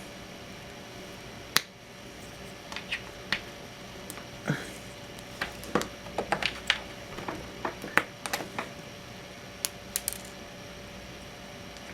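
Irregular small plastic clicks, snaps and scrapes as a stuck raft is picked and pried off a freshly 3D-printed plastic part; the raft is not coming off cleanly.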